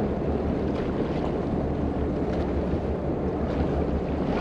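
Steady wind rushing over the microphone, with water sloshing along the side of the boat.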